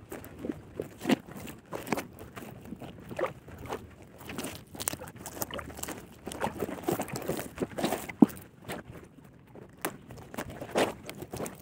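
Hands working a tangled nylon gill net off a large fish on a styrofoam float: irregular rustling, scraping and short knocks, with one sharp knock a little past the middle.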